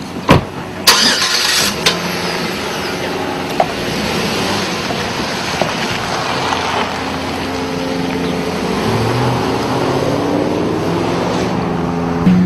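A car door shuts with a thump, then a car engine starts about a second later and keeps running, its pitch climbing as the car accelerates over the last few seconds.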